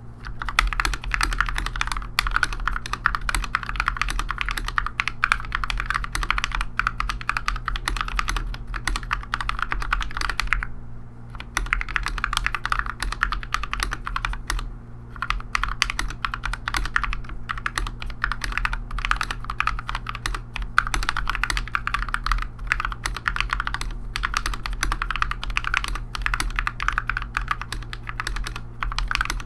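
Continuous typing on a mechanical keyboard with Gateron Yellow linear switches, filmed and lubed with Krytox, in a GMMK Barebones board. The keystrokes run in a steady, fast stream, broken by brief pauses about eleven and fifteen seconds in.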